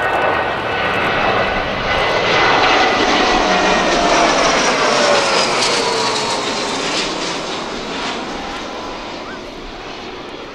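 An Embraer KC-390 with its two turbofans and a three-engined Dassault Falcon 50 business jet flying past together, their engine noise swelling to a peak about four seconds in and then fading away. Whining engine tones slide down in pitch as they pass.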